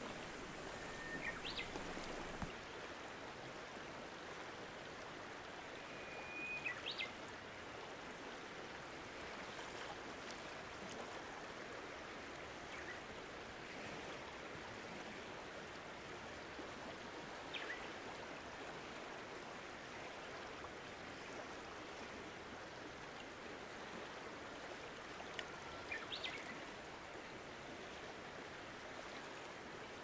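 Soft, steady rush of a small mountain waterfall and its stream, with a few short bird calls scattered over it.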